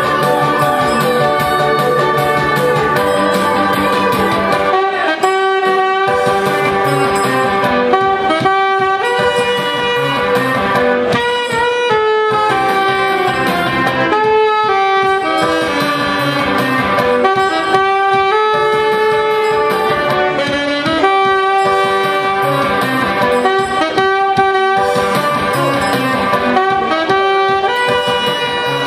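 Saxophone playing a melody of held and moving notes live, over backing music with a steady beat.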